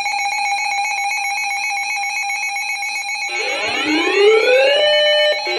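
Electronic emergency-alert tone: a steady buzzing tone, joined about three seconds in by several overlapping siren-like sweeps rising in pitch.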